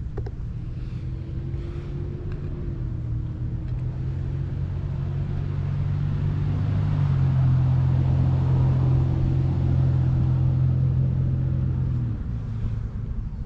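A motor vehicle's engine running steadily with a low hum. It grows louder over several seconds, then drops away about twelve seconds in.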